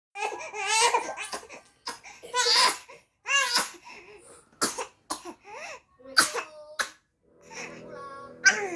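A baby crying in short, high, wavering wails and breaking into several short coughs partway through; the baby coughs whenever it cries. A steady low hum comes in near the end.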